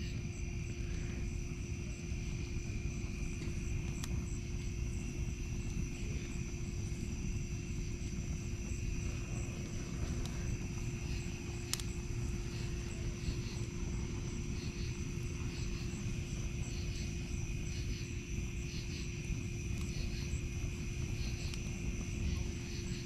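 Steady night chorus of crickets and other insects: an unbroken high trill with evenly repeating chirps above it, over the low rush of a wood campfire burning in a steel fire ring. A single sharp crackle from the fire comes about twelve seconds in.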